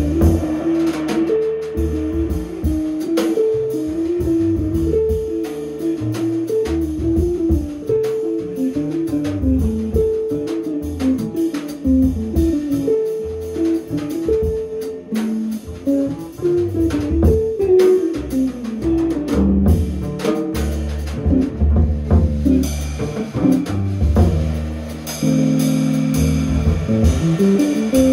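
Jazz trio of guitar, double bass and drum kit playing: a single-note melody line over low bass notes and cymbal and drum strokes. The cymbal wash thickens about two-thirds of the way in.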